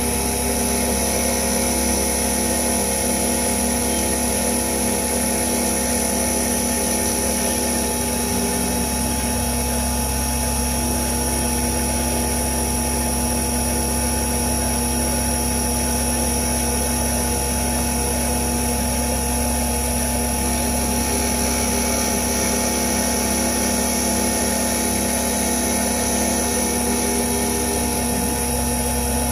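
CNC milling machine spindle running steadily as a solid carbide 8 mm end mill cuts a tool-steel connecting rod, a constant machine whine.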